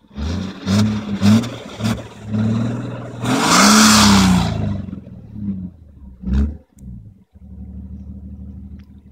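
BMW E39 525d's 2.5-litre straight-six diesel through a straight-piped sport exhaust, free-revved at standstill: several quick blips, then one longer, louder rev about three and a half seconds in, a last short blip, and settling back to idle.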